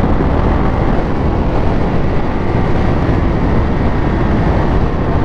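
Triumph Speed Triple 1200 RS inline-three engine running at a steady cruise, mixed with heavy wind rush on the helmet microphone.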